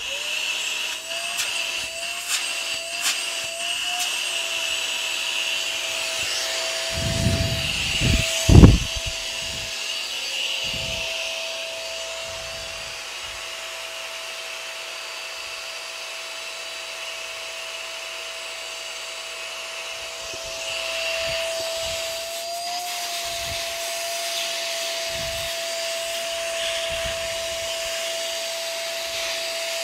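Small drum-type shop vacuum running steadily with a high motor whine and airflow hiss, on its first test run after assembly. About seven to nine seconds in there are a few heavy low thumps, the last one the loudest sound.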